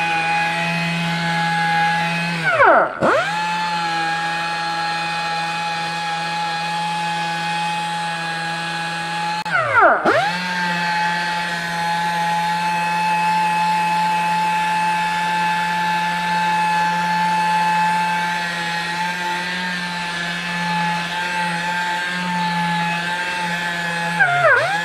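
Small handheld power sander running with a steady whine as its pad works the aluminium engine side cover. About three seconds in and again about ten seconds in, its pitch sags sharply and climbs straight back up to speed.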